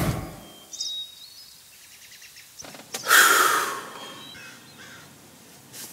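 Faint outdoor hush with a few short bird chirps, then a man's heavy sigh about three seconds in, the loudest sound here.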